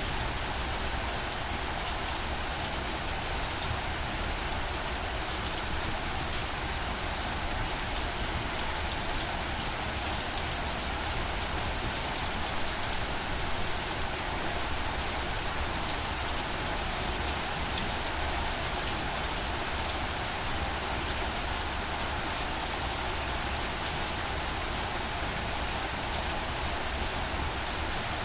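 Steady rain falling, a constant hiss of drops hitting surfaces with fine crackling detail and a low rumble underneath.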